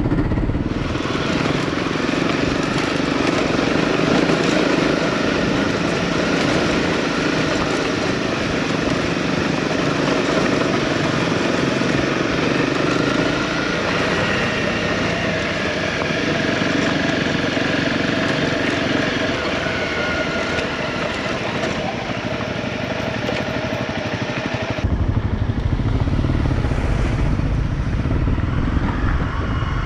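Honda CRF250L single-cylinder four-stroke dirt-bike engine running steadily while riding a gravel road, its pitch holding and then stepping with the throttle and gears, with wind noise. About 25 seconds in the sound turns deeper and heavier in the low end.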